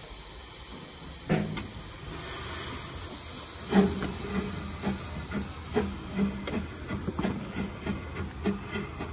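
Small narrow-gauge steam locomotive pulling away: a sharp blast about a second in, a spell of steam hiss, then regular exhaust chuffs, about two to three a second and quickening as it gathers speed.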